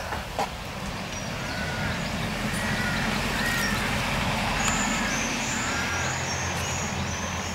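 A motor vehicle's engine passing, a low steady hum that swells to its loudest about halfway through and then slowly fades.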